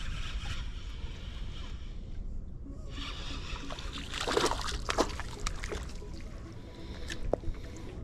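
A hooked crappie splashing and thrashing at the water's surface beside the boat, loudest about four to five seconds in, followed by a few sharp knocks near the end.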